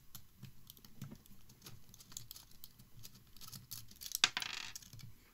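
Small screwdriver backing a screw out of a bare hard drive: a run of faint, irregular ticks and light scraping of metal, with a sharper click about four seconds in.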